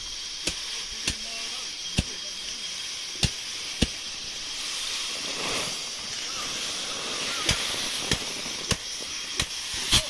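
Sickle cutting through dry rice stalks: sharp, crisp snaps at irregular intervals over a steady high hiss.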